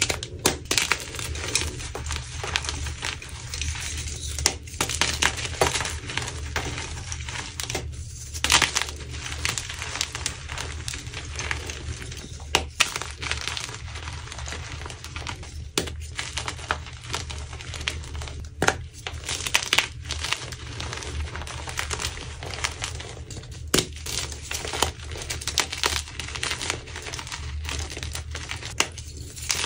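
Blocks of red-dyed gym chalk being crushed and crumbled: continuous crunching and crackling with frequent sharp snaps.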